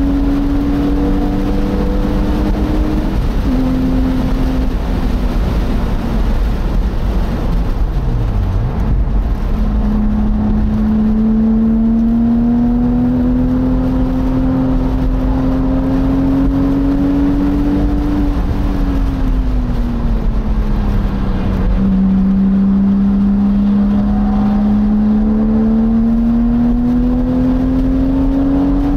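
Porsche Boxster engine heard onboard at track speed, its note rising and falling with the throttle: it eases off about three seconds in and goes quiet for several seconds, then climbs steadily under acceleration, drops again as the car slows, and climbs once more near the end. A steady rush of wind and road noise from the open cockpit runs underneath.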